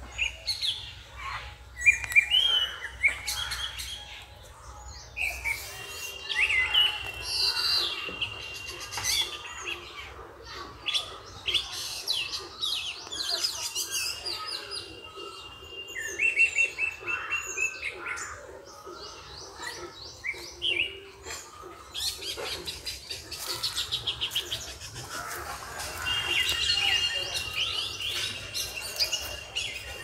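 Several birds chirping and calling: many quick chirps and trills, with a few long, steady whistled notes.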